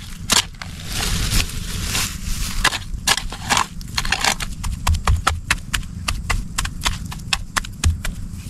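A hoe chopping over and over into soil and grass roots, a quick irregular run of sharp strikes that comes faster in the second half.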